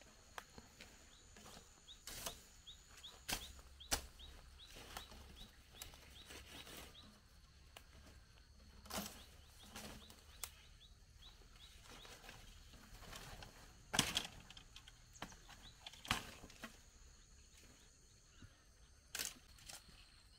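Irregular sharp snaps and rustles as taro plants are picked by hand, the loudest snaps about 4, 14, 16 and 19 seconds in. A quick run of short high chirps sounds in the first few seconds.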